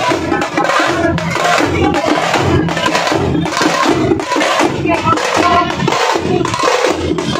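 Street drums played hard in a loud, driving rhythm, with crowd noise underneath.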